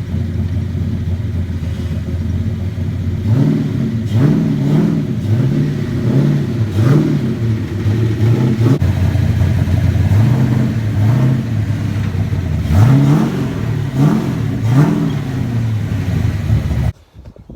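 The Mustang's 331 stroker small-block Ford V8 idles, then is revved in a run of short blips, its pitch rising and falling roughly once a second, while the car is driven onto a trailer. The sound cuts off suddenly near the end.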